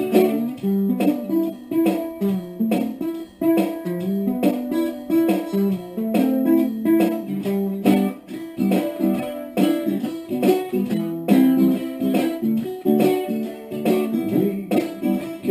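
Kala baritone electric ukulele in DGBE tuning playing the song's chord pattern: a steady run of quick string strokes, with chords ringing in a low-to-middle register.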